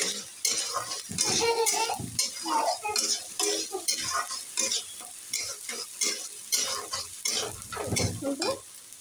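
A steel spatula scraping and stirring tomato-and-onion masala in a metal kadai, in quick, uneven strokes about two or three a second, over the steady sizzle of the masala frying in oil.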